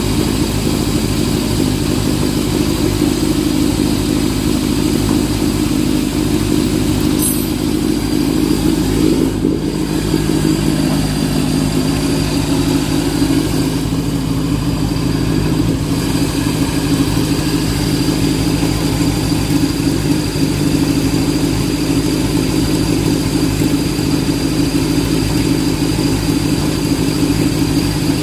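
1929 Peugeot 190S's small four-cylinder engine running steadily.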